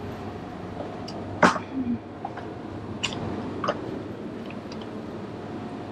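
Steady background hum with one sharp click about one and a half seconds in, followed by a brief faint voice and a few fainter ticks.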